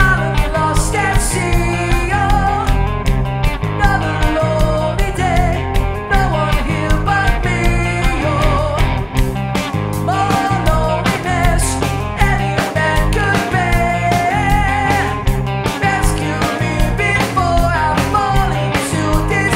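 Rock band playing: electric bass guitar and drum kit keeping a steady beat, with guitar and a singer's vocal on top.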